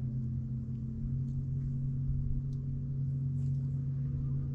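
A boat motor running with a steady, even hum.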